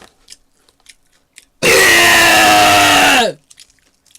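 A person's long, loud burp, about a second and a half, with a rough, pitched tone that drops in pitch as it ends. It is preceded by a few faint mouth clicks.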